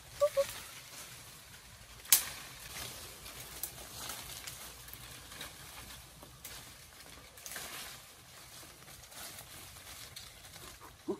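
Leaves and branches rustling and scraping as people climb down through a tree and push through dense brush, with one sharp crack about two seconds in. Two brief high-pitched chirps sound right at the start.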